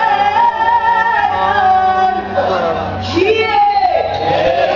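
Loud dance music with a singing voice, its held notes sliding in pitch over a steady bass.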